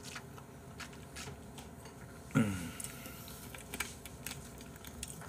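Quiet handling of a plastic drink bottle, with scattered faint clicks. About halfway through comes one short, low vocal sound from the drinker that falls in pitch.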